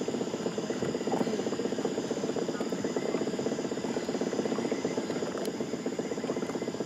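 Boat engine idling steadily, a rapid even putter.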